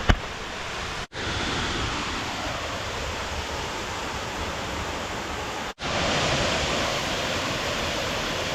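Waterfall rushing: a steady, loud wash of falling water that cuts out for an instant about a second in and again near six seconds.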